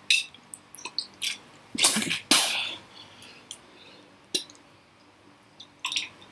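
A man coughing and breathing hard after eating a fried insect, with a pair of louder noisy coughs or gasps about two seconds in. Small clicks and mouth sounds follow as he drinks from a plastic sports water bottle.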